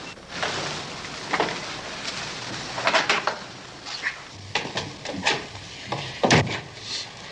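Scattered knocks and clatters, five or six of them, over a rustling background.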